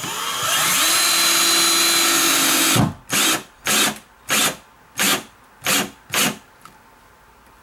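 Cordless drill driving a 2.5-inch coarse drywall screw through the cabinet back into a wall stud: one continuous run of nearly three seconds, its whine rising and then holding steady, followed by six short trigger bursts about half a second apart as the screw is snugged down.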